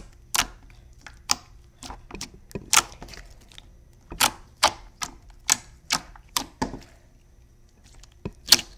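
Glossy homemade slime being poked and squeezed close to the microphone. It makes sharp, irregular clicks and pops, about one or two a second, and falls quiet for about a second near the end before a few more.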